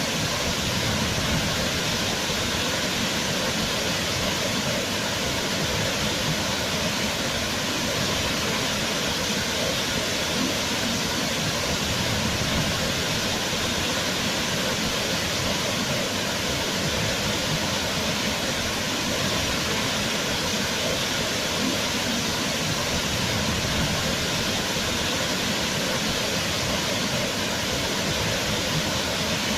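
Waterfall: water pouring and splashing in a steady, unbroken rush, with no change throughout.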